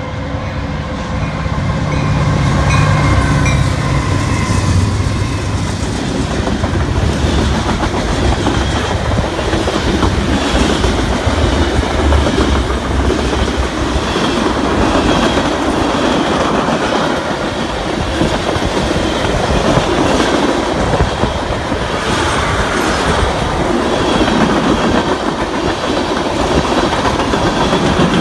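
CN freight train passing at speed: the locomotives, led by an EMD SD75I, rumble by in the first few seconds, then a long line of freight cars rolls past with a steady clickety-clack of wheels over the rail joints and a faint high wheel squeal.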